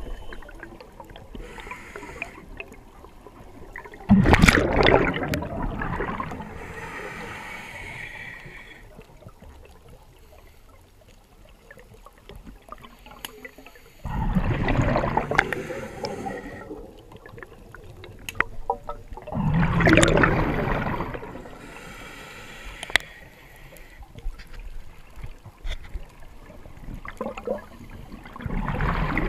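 Water bubbling and sloshing in bursts every several seconds, with quieter gurgling between them.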